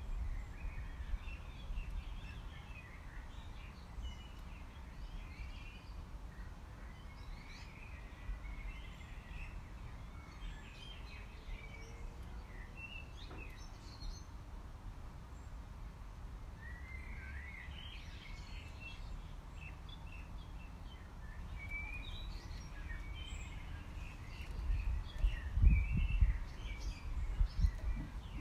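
Small birds chirping and twittering on and off over a steady low rumble, with a few loud low buffeting bursts near the end.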